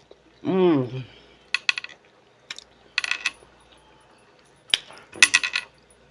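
Hard mussel and clam shells clinking against each other in short clusters of sharp, ringing clicks, four or five times, after a short hummed 'mm' of enjoyment.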